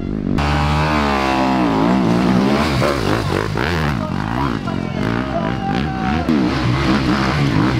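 Enduro dirt-bike engines revving, their pitch rising and falling repeatedly as the throttle is opened and closed, with an abrupt change about half a second in.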